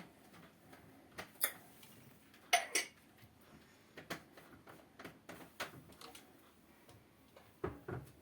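Irregular light clicks and taps of small hard objects, loudest as a pair of sharp clinks about two and a half seconds in.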